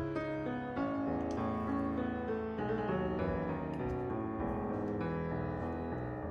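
Background music: piano or keyboard notes playing steadily.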